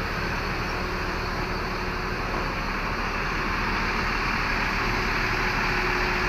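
Diesel bus engine idling steadily, with an even hiss over the low running note.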